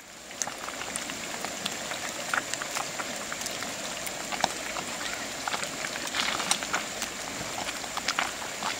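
River fish deep-frying in hot oil: a steady sizzle with frequent small crackles and pops as the fish fries crisp.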